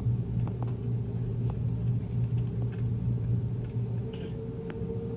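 Cabin noise of a jet airliner taxiing with its engines at idle: a steady low hum over rumble, joined by a steady whine about four seconds in.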